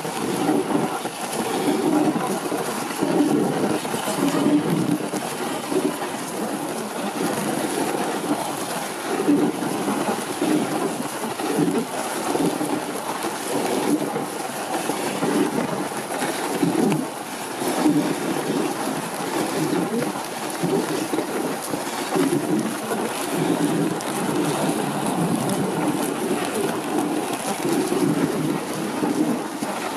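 Wooden reindeer-drawn sled moving over snow: a steady rushing and crunching of the runners on the snow, pulsing unevenly.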